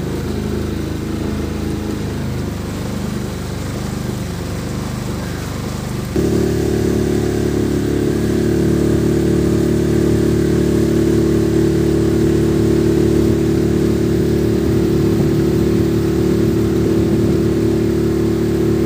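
Motorboat engine running steadily. About six seconds in it suddenly becomes louder, with a stronger, higher hum, and holds there.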